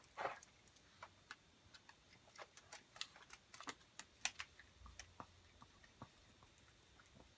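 Chihuahua eating from a bowl: faint, irregular small clicks and ticks of mouth and food against the bowl, a few a second.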